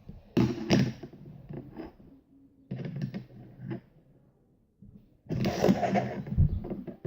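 Small objects being handled: a few scattered knocks and clicks, then a second or so of rustling about five seconds in.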